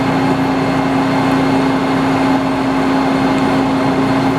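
Metal lathe running and cutting the steel collar of a sawmill mandrel, a loud steady machine hum with a grinding cutting noise over it. The cut sets up a whoop-whoop-whoop, which the machinist puts down to coolant on the collar, turning that way because the collar is no longer perfectly square.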